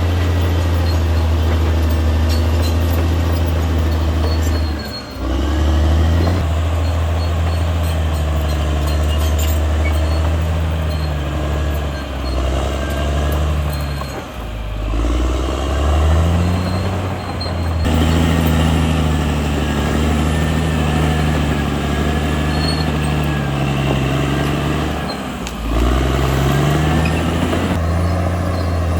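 CAT D6R XL bulldozer's diesel engine running under load. Three times it briefly drops, then climbs back in pitch as the machine takes load again.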